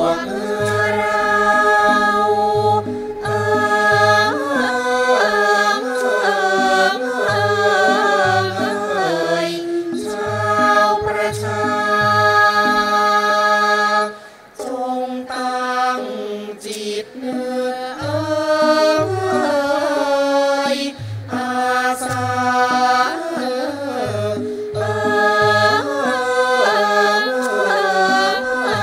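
Thai classical chorus of men's and women's voices singing a royal praise song in unison, accompanied by a Thai classical ensemble with a steady low drum beat. The singing breaks off briefly about halfway through, then goes on.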